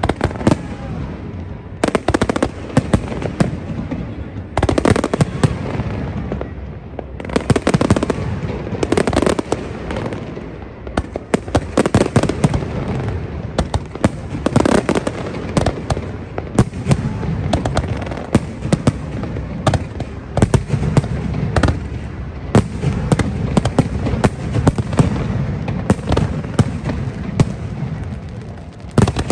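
Fireworks display: a dense, irregular run of sharp bangs and pops in quick succession over a continuous rushing noise, coming in heavier and lighter volleys.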